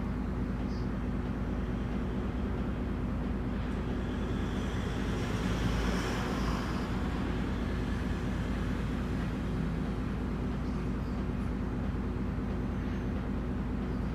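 Cabin sound of a Mitsubishi Fuso Aerostar city bus standing with its diesel engine idling: a steady low hum. About halfway through, a brief swell of higher-pitched noise rises and fades.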